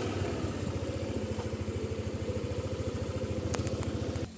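An engine idling with a rapid, even low pulse, cutting off abruptly near the end.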